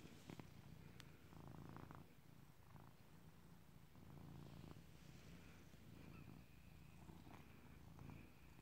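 Domestic cat purring softly, the low rumble swelling and easing with each breath about every second and a half.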